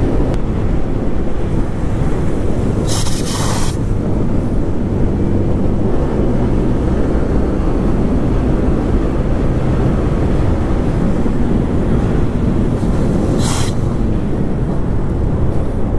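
Yamaha 155 cc single-cylinder motorcycle engine running at road speed under heavy wind rush on the microphone. Two brief rushing hisses come through, about three seconds in and again near the end.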